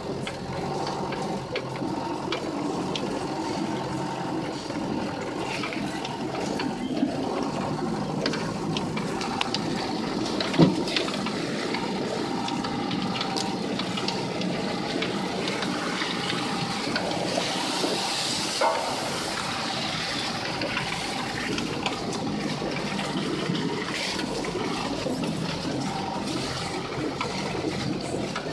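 Steady running noise of an off-road vehicle driving slowly over a rough dirt track, heard from inside the cab, with small rattles and one sharp knock about ten seconds in.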